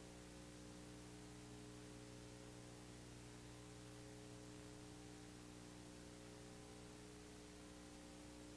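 Near silence: only a faint, steady electrical hum with hiss.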